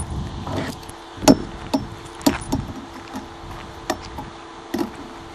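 Handling noise: a scattered series of sharp clicks and clacks, the loudest about a second in, over a faint steady hum.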